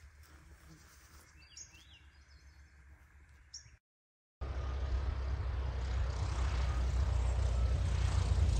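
Faint bird chirps, then, after a cut, the steady low engine and propeller noise of a high-wing single-engine light plane coming in to land, growing louder as it nears.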